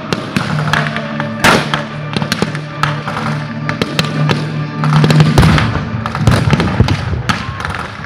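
Reenactment battle gunfire: rifles and machine guns firing blanks in rapid, overlapping shots, with one loud bang about a second and a half in. Heavier blasts of pyrotechnic charges come after about five seconds. A steady low hum runs underneath until then.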